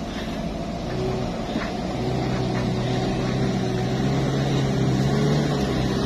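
A motor vehicle's engine running at a steady pitch, getting louder over the first two seconds and then holding, over a low rumble.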